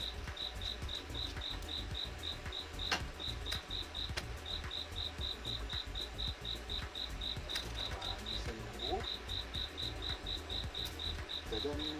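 A cricket chirping steadily, about four short high chirps a second, with a few brief pauses, over a low steady rumble. A single sharp click about three seconds in.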